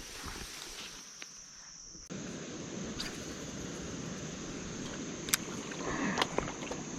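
Steady high-pitched chorus of crickets or other insects in summer vegetation. About two seconds in, a constant rushing noise comes in underneath, with a few short sharp clicks near the end.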